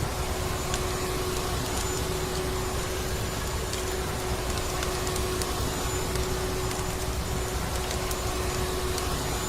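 Household vacuum cleaner running steadily with an unchanging motor hum and a constant rush of air. Faint scattered crackles, like a wood fire in a fireplace, sit over it.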